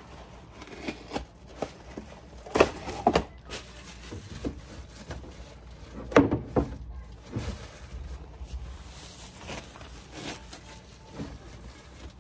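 A few scattered knocks and clunks of household items being taken out of a box and set down in a cabinet, the loudest about six seconds in.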